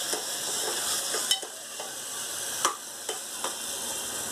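Chopped onion and tomato sizzling in hot oil in a pot while a steel ladle stirs them, with a few sharp clicks of the ladle against the pot.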